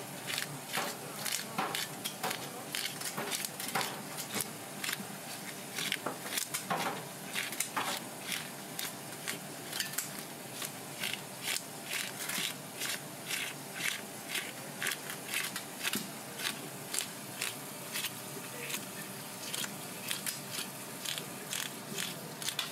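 Metal fish scaler scraping the scales off a large blue fish in repeated quick strokes, about two a second, each a short crackling rasp as the scales tear loose.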